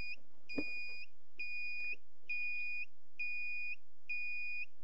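Warning beeper on the ignition controller's signal tower sounding a steady series of high-pitched beeps, each about half a second long, roughly once a second. The beeping is the alert that a hybrid rocket motor firing is about to begin.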